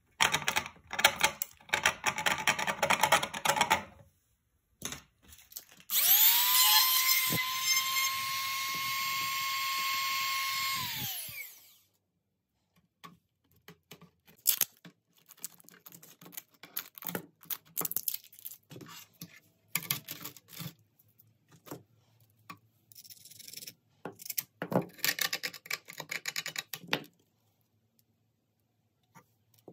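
Rustling, clattering handling noise. Then a small electric power tool spins up with a steady whine, runs for about five seconds and winds down quickly. Scattered clicks, taps and scraping follow.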